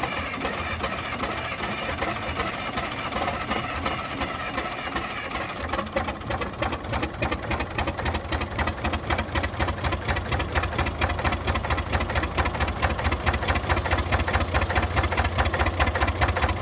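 Cummins diesel engine of a trailer-mounted generator cold-starting: a cranking sound for about six seconds, then the engine catches and runs with a strong, even, low pulse that grows louder.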